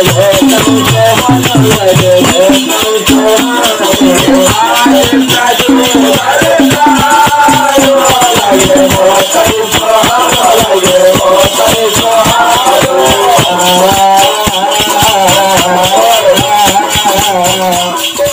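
Live folk bhajan music: a dholak drum beating a fast rhythm under a steady metallic shaker rattle, with a wavering melody line above.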